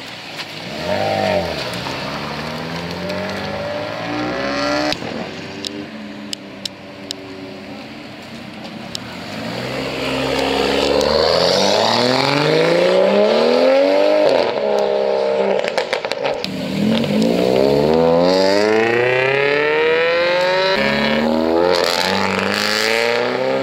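Modified car engines and exhausts accelerating hard as cars pull away, the pitch climbing and dropping at each gear change, with two strong full-throttle pulls in the second half. A few sharp exhaust cracks come several seconds in.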